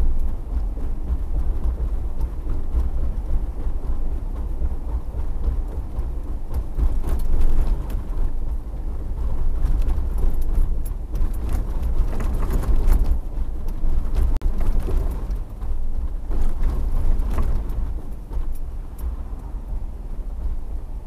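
Car being driven: a steady low road-and-engine rumble, with scattered light clicks in the middle stretch.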